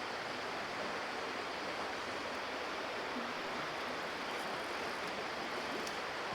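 Shallow creek water running, a steady rushing with no other clear event.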